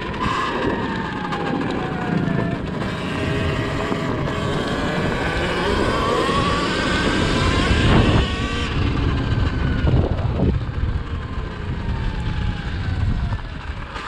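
Surron Ultra Bee electric dirt bike's motor whining, its pitch falling and rising with speed, over tyre noise on a gravel lane. Two louder thumps come about midway and a little later.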